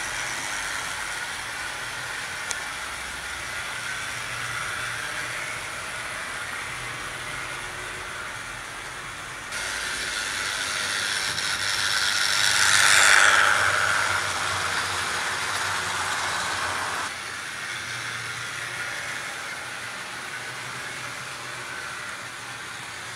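OO gauge model GWR 5700 class pannier tank locomotive running along the track with its coaches: a steady mechanical running noise from the motor and wheels on the rails. It grows louder as the train passes close, loudest about halfway through, then drops back.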